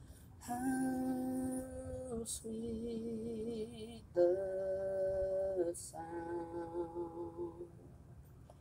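A solo voice singing wordless long held notes in four phrases of about a second and a half each, with a slight waver in pitch and short gaps between them.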